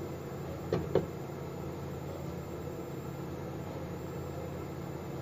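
Glass lid set down on a nonstick frying pan, two short clinks about a second in, then a steady low hum.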